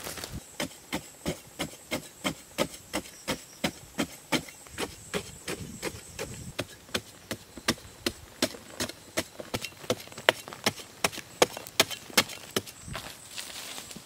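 A short-handled digging tool chopping into hard-packed earth with quick, regular strikes, about three a second, ending with a brief rustle of loose soil near the end.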